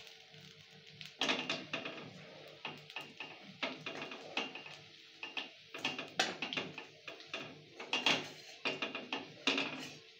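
Metal spatula scraping and clinking against a metal kadai as coconut fritters are turned in shallow frying oil: an irregular string of sharp scrapes and knocks, some with a short metallic ring.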